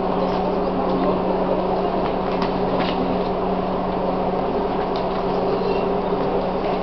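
Steady electrical hum of a Chichibu Railway 1000 series electric train standing at a platform, holding two constant pitches, low and a bit higher. A few faint light clicks of passengers' footsteps come through it.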